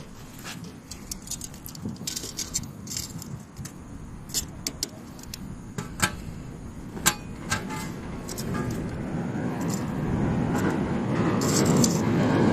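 Small metal items clinking and rattling as they are handled, a dozen or so sharp clinks. Under them a low rushing rumble grows steadily louder through the second half.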